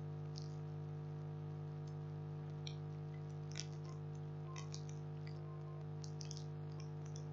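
Scattered, irregular computer mouse clicks, faint and sharp, from slow eraser work on a computer, over a steady electrical hum made of several held tones.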